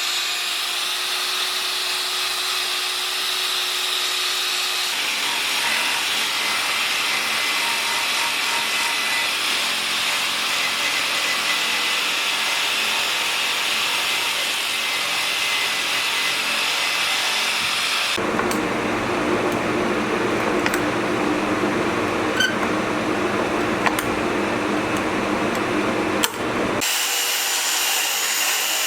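Handheld electric power tool running steadily against wood as the bowl is ground or sanded, its tone changing abruptly about 5, 18 and 27 seconds in.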